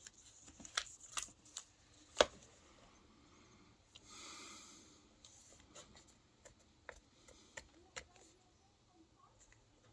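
A few light clicks and taps from laptop parts being handled, scattered through quiet, the loudest a little after two seconds in.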